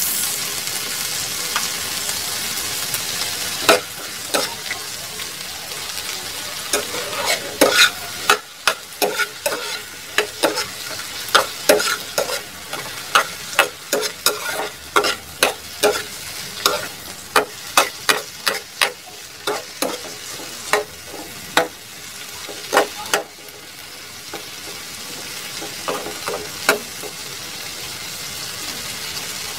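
Sliced okra and onion sizzling in a hot frying pan while a spatula stirs them, scraping and knocking against the pan about once or twice a second. The stirring stops near the end and only the steady sizzle goes on.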